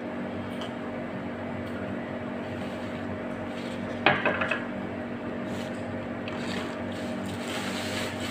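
Steady room hum, with a sharp clink about four seconds in as a glass of juice is set down on a stone countertop, followed by a few small rattles.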